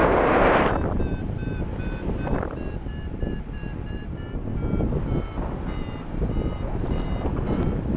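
Paragliding variometer beeping: short, rapid tones, several a second and shifting in pitch, that signal the glider is climbing in a thermal. They start about two seconds in, over steady wind noise on the microphone that is loudest in a gust at the start.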